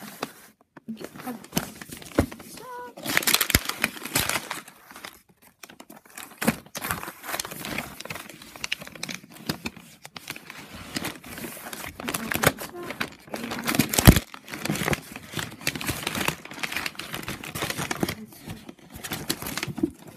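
Paper wrapping being torn and crumpled by hand as a box is unwrapped: irregular crinkling and tearing with short pauses in between.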